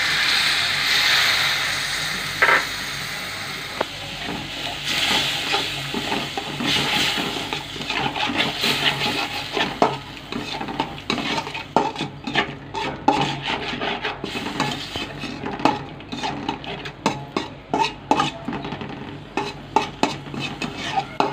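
Water poured into a hot wok of fried onions, garlic, chillies and spice powders hisses and sizzles loudly at first, then dies down. A metal spatula then scrapes and clicks against the wok in quick, irregular strokes as the masala is stirred and fried down; the water keeps the spices from burning.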